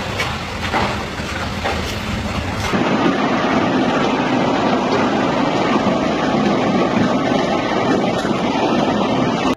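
Large hailstones pelting down. At first a lighter patter with separate hits, then from about three seconds in a louder, dense, steady clatter of hail hammering on cars and pavement.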